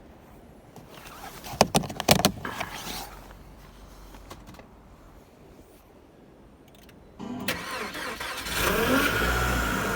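A few sharp clicks, then a Chery Tiggo 4 engine cold-started in frost: the starter cranks about seven seconds in, and the engine catches and flares up with a rising sound. It settles into a loud fast idle with a steady high whine, the small howl ('ревчик') that the owner takes for an unusual noise on the first start in the cold.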